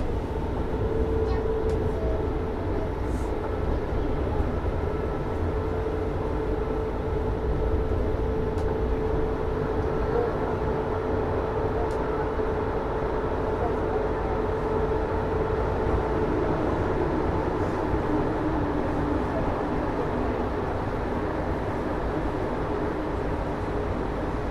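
Rubber-tyred automated metro train running along its guideway: a steady rolling rumble with a motor whine that drops a little in pitch near the end.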